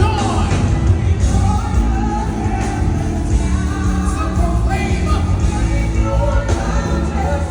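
Live worship music: voices singing over a band with a strong, steady bass.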